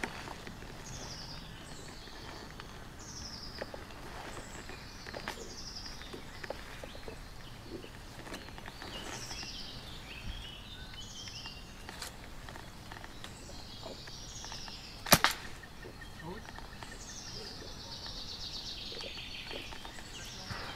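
A bird sings short, high, falling phrases every second or two. About fifteen seconds in comes one sharp double crack, the loudest sound here: a spring-powered bolt-action airsoft sniper rifle firing.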